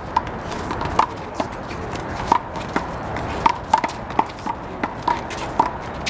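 A handball rally: a rubber handball slapped by hands and smacking off the concrete wall and court in sharp, irregular knocks, mixed with the scuffs and brief squeaks of sneakers on the court.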